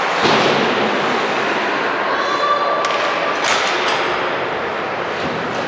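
Ice hockey play echoing in an arena: a steady wash of skates on ice and crowd noise, broken by several sharp knocks and thuds of sticks, puck and boards. The loudest thud comes about a third of a second in.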